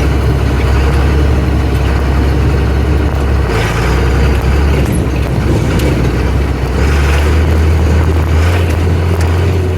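Farm tractor engine running under load in high range while pulling grain wagons, a loud steady low drone with rattle and noise over it. The drone's pitch drops slightly about three and a half seconds in and rises again about seven seconds in.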